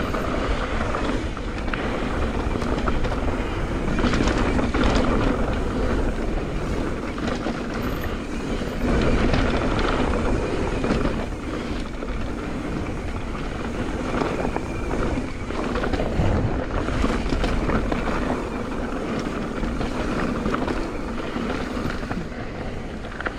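Mountain bike riding fast down a dirt trail: tyres rolling over dirt and roots with a continuous rattling of the chain and frame.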